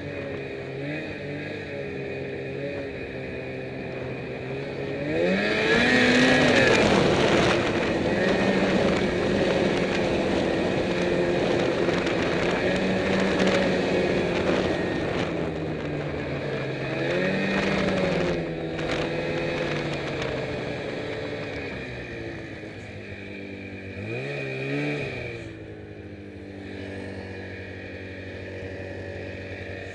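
Snowmobile engine running on the move, throttled up sharply about five seconds in and held at speed, revved again briefly twice later on, then easing back to a lower, quieter pace near the end.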